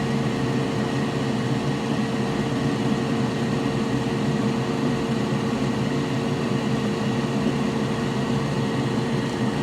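Steady fan drone with a constant hum tone, unchanging throughout.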